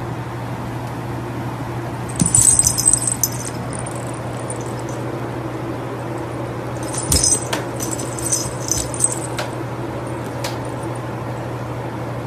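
Small bell on a cat's collar jingling in two short bursts, about two seconds in and again from about seven to nine seconds, each opening with a soft thump as two cats spar. A steady low hum runs underneath.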